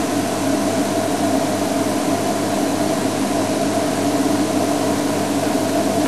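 Vehicle engine running steadily at idle, a constant hum with a hiss over it.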